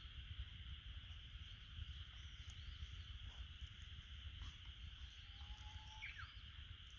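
Faint, steady outdoor ambience of an insect chorus with a low rumble underneath. A few short bird chirps come through, including a drawn-out whistle about five seconds in followed by a quick falling note.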